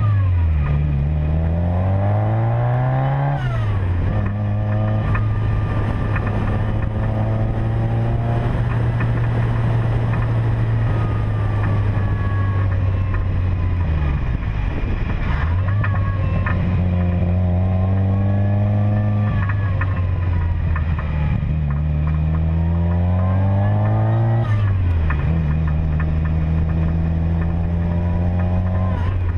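Car engine running while driving. Its pitch climbs as the car accelerates and drops sharply at each gear change, three times, over steady road noise.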